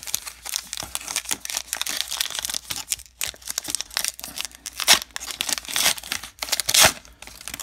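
The plastic wrapper of a Topps baseball card pack being torn open by hand, crinkling throughout, with two louder sharp rips about five and seven seconds in.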